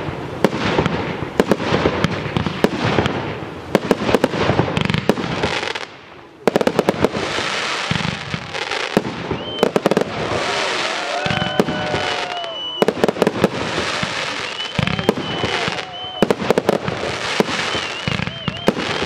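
Aerial fireworks going off in a dense run: shell bursts and crackling one after another, with a brief lull about six seconds in.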